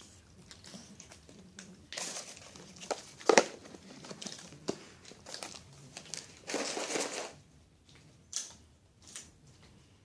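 Paper wrapping crinkling and rustling in irregular bursts, with sharper crackles around three seconds in and a longer rustle near seven seconds.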